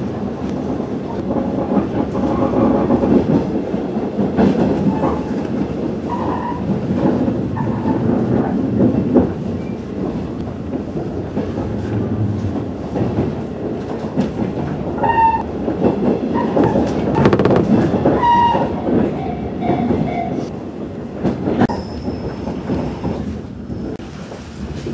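Interior running noise of a JR 115-series electric train: a steady rumble of wheels on rail with clatter and knocks, and a few brief high squeals in the second half. It grows quieter over the last few seconds as the train slows into a station.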